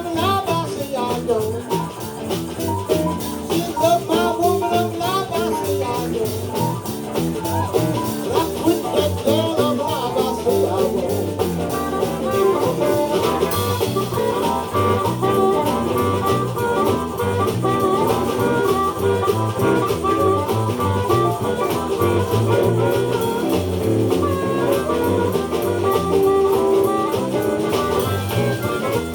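Live blues band playing an instrumental passage: guitar over a steady drum-kit beat.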